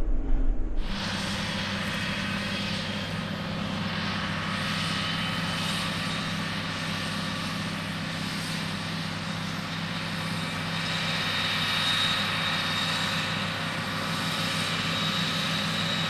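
A steady machine drone with a faint high whine above it, starting about a second in and holding at an even level.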